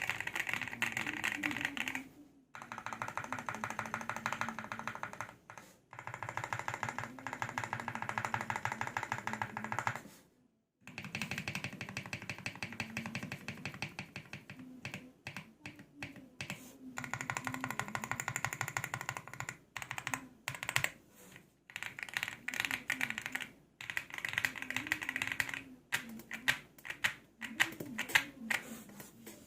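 Fast typing on a Monsgeek M1 mechanical keyboard with stock Cream Yellow V3 switches and GMK Mizu clone keycaps. The board is dampened with polyfill, PE foam and a two-layer tape mod. The keystrokes come in quick runs of a few seconds, broken by brief pauses.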